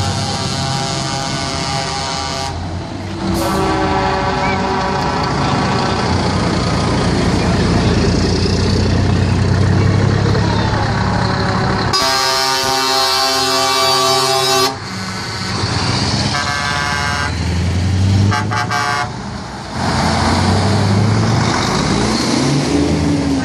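Truck air horns sounding in a series of long blasts as heavy decorated tractor units, among them a Scania, drive past one after another. The longest and strongest blast comes about halfway through. Deep diesel engine running continues underneath.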